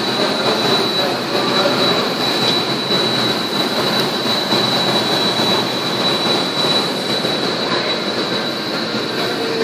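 Steady mechanical noise with a continuous high-pitched whine.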